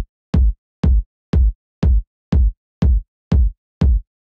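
Sampled electronic kick drum repeating on the beat, about two hits a second, each a short click over a deep boom. It plays through a stereo-widening rack set to widen the kick's low body rather than its click.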